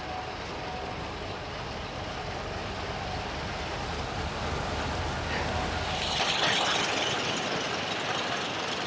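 Diesel engine of a crawler crane running steadily, a low drone. About six seconds in, the drone fades and a hissing noise takes over.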